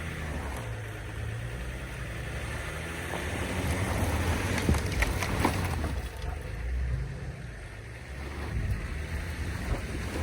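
Vehicle engine running in snow, getting louder for a couple of seconds around the middle, with a few sharp knocks.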